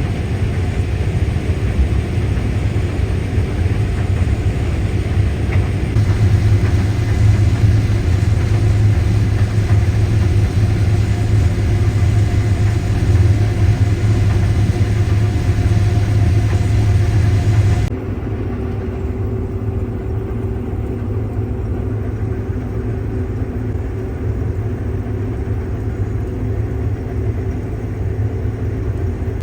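Combine harvester running steadily in corn, a deep, even engine-and-machinery drone. About eighteen seconds in the sound cuts abruptly to a quieter, duller drone.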